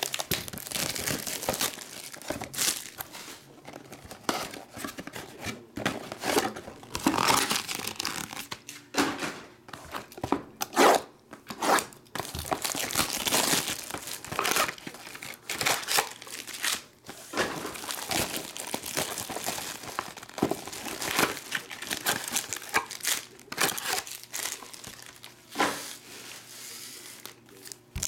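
Plastic shrink-wrap crinkling and tearing as it is cut and stripped off a baseball-card hobby box, then foil card packs rustling in the hands. Irregular crackles and rustles throughout.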